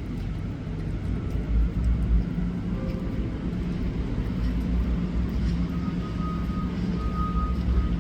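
Steady low rumble, with faint steady high tones entering about halfway through.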